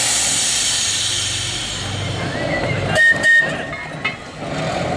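Manx Electric Railway tram Car 6 releasing a sudden burst of compressed-air hiss that fades over a couple of seconds, then giving a short double toot on its air whistle about three seconds in, over a low steady hum.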